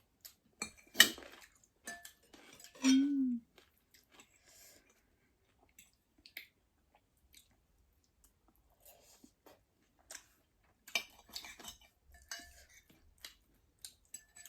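Close-up eating sounds of someone eating ramen: chewing with scattered clinks of a spoon and fork against a bowl. A sharp knock about a second in and a brief low hum about three seconds in.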